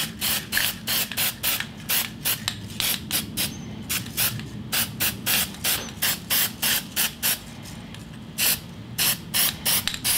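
Aerosol can of brown spray paint hissing in rapid short bursts, three or four a second, with a pause of about a second near the end before a few more bursts.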